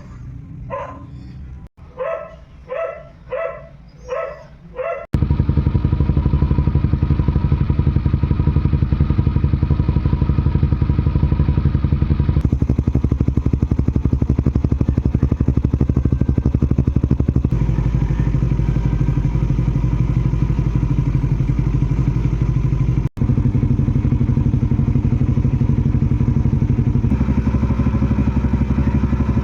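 A dog barks about eight times in quick succession. Then a Yamaha NMAX scooter's engine runs loudly and steadily, with abrupt jumps in tone between joined clips.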